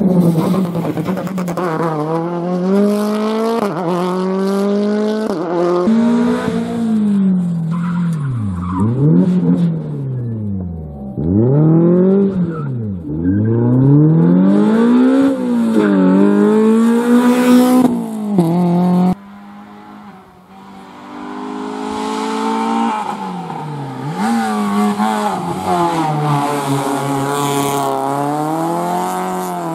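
Rally cars driven flat out on a special stage: engines rev high, with the pitch climbing and falling sharply through gear changes and lifts off the throttle. About two-thirds through, the sound cuts off abruptly to another car at high revs.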